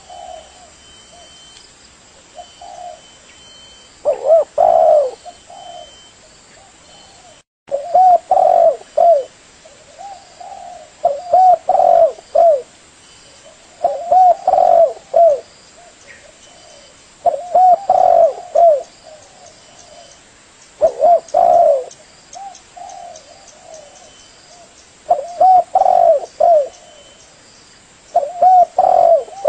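Spotted doves cooing: groups of a few short, low coos repeated every few seconds.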